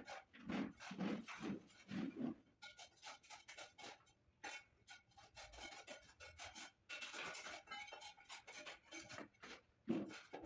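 A rag rubbed back and forth over marble tiles, working cement paste into the joints. The strokes come about two a second at first, then turn more irregular, with another stroke near the end.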